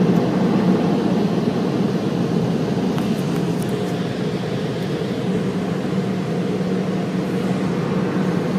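Car wash machinery running: a steady mechanical noise with a constant low hum, and a few faint ticks about three seconds in.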